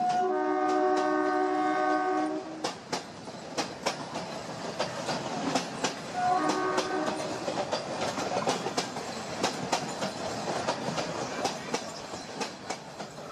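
Train running: a horn sounds for about two and a half seconds at the start and again briefly around six seconds in. Wheels clack over rail joints throughout.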